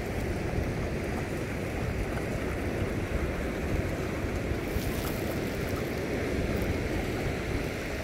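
Wind buffeting a phone microphone over a steady wash of distant surf.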